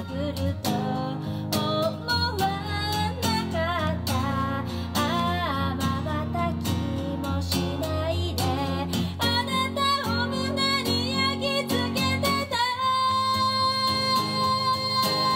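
A woman singing a Japanese ballad while strumming an acoustic guitar. In the last few seconds she holds one long note over the strumming.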